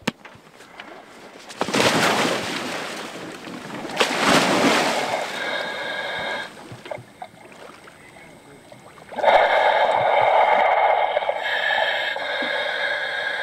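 A scuba diver dropping into the sea from a boat: splashing and rushing water about two seconds in and again around four seconds. From about nine seconds in, a steady loud sound from the topside dive radio's speaker.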